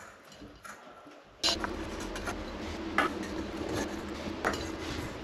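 A glass light bulb being screwed into a vanity-light socket inside a clear glass shade: a few separate light clicks and rubbing of glass on metal. A steady low hum comes in abruptly about a second and a half in.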